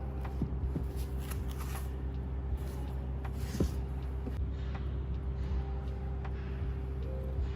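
Light handling noises: soft rustling, twice, and scattered small clicks and taps, over a steady low electrical hum.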